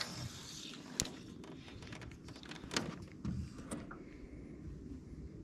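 Spinning rod and reel being handled after a cast: a sharp click about a second in and a few lighter clicks and knocks, faint over a low background rumble.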